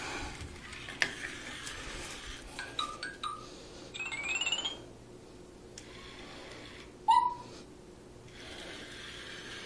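Short electronic chirps from a moving toy mouse: a stepped rising run of chirps about four seconds in and a short rising beep about seven seconds in, with a few light knocks in between.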